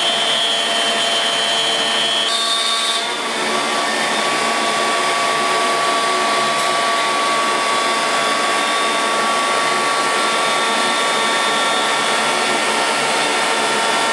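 CNC milling machine running on aluminum: a steady spindle whine with several tones over an even rushing hiss. About three seconds in the tones shift and a new steady whine settles in.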